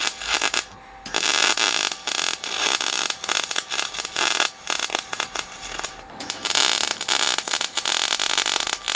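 Gas-shielded MIG welding arc crackling and sizzling while beads are laid to build up a worn bench-vise screw. The arc breaks off briefly about a second in and again around six seconds, then restarts.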